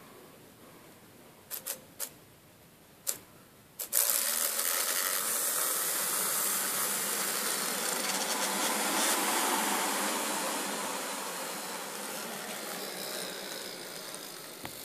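A few sharp clicks, then about four seconds in a fidget spinner on a rod starts spinning fast with a steady mechanical whir that slowly fades toward the end.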